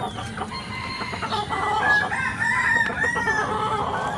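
Village chickens (ayam kampung) clucking and calling, with a rooster crowing in a long call about halfway through.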